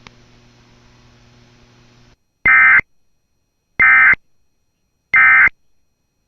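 Emergency Alert System end-of-message data bursts: three short, identical bursts of buzzing digital tones about 1.3 s apart, marking the end of the alert. Before them there is a faint steady hum for about two seconds.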